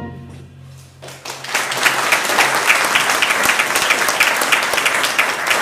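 A brief hush as a brass band's closing chord dies away, then audience applause starting about a second in and carrying on steadily with many hands clapping.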